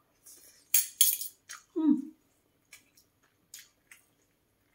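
A person eating a mouthful of rice and fish curry: chewing and smacking sounds in the first couple of seconds, a short voiced hum that falls in pitch about two seconds in, then a few faint clicks of a fork and spoon.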